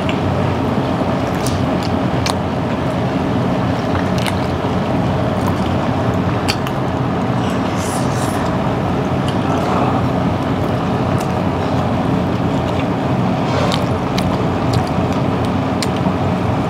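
Steady restaurant dining-room noise, a constant hum and murmur, with scattered light clicks of a fork and spoon against a pasta bowl while someone eats.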